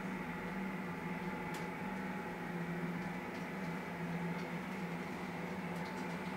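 Steady electric hum with a faint higher whine and a few light ticks: the standing sound of a Märklin ICE model's ESU sound decoder, played through its onboard speakers.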